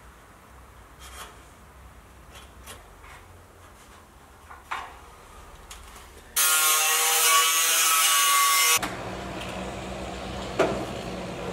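Light scrapes and taps of sheet metal being handled and marked, then a power tool runs loudly for about two seconds, starting and stopping abruptly, followed by a lower steady hum and a single sharp click.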